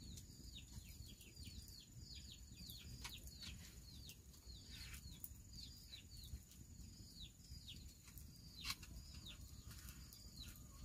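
Faint bird peeping: short high notes that fall in pitch, repeated about twice a second, over a steady thin high insect buzz. A light click about three-quarters through.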